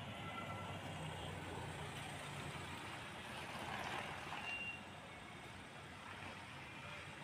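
Mahindra Thar's engine running low and steady as the vehicle rolls slowly past and away, heard faintly from the roadside. The engine and tyre noise swells briefly about four seconds in, then drops.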